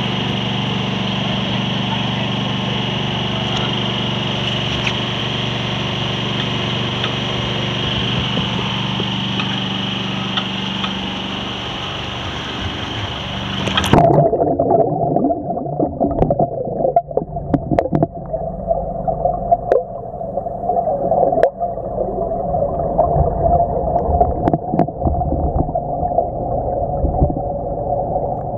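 Open-air wind and boat engine noise on a camera microphone, which about halfway through turns suddenly muffled as the camera rig plunges underwater. Below the surface it is a dull steady hum with scattered knocks and clicks from the submerged housing and rig.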